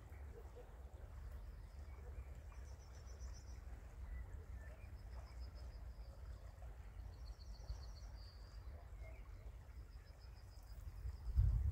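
Outdoor ambience: a steady low rumble with a high, pulsed trill about a second long, repeating every two to three seconds from a small bird or insect.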